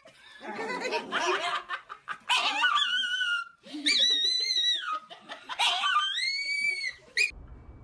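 Laughter, followed by several high-pitched, drawn-out calls that rise and fall in pitch.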